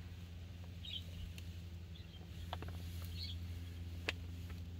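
Quiet background: a steady low hum, a few faint short high chirps, and a couple of light clicks.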